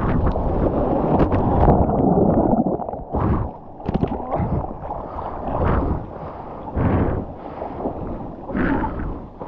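Ocean whitewater churning and splashing against the camera at water level: a loud, steady rush for about the first three seconds, then broken splashes and sloshing every second or so as the water settles.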